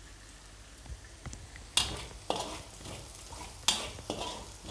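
A spoon stirring garlic, onion and chillies frying in butter in a pan, over a faint sizzle, with four sharp scrapes and knocks of the spoon against the pan from about two seconds in.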